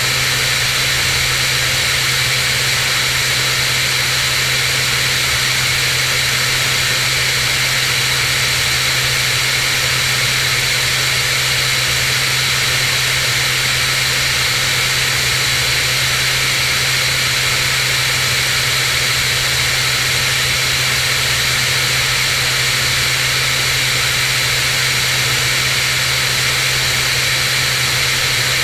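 Cirrus SR22's six-cylinder piston engine and propeller droning steadily in cruising flight, under an even rushing hiss of airflow past the microphone.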